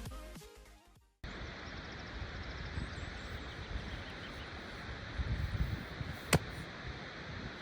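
Electronic background music fading out, then a cut to a steady outdoor rushing noise. A single sharp click comes about five seconds later.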